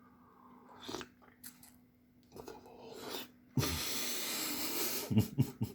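Slurping a raw Pacific oyster from the half shell: a loud sucking slurp lasting about a second and a half, ending in a few quick low thumps. Small clicks and shell handling come before it.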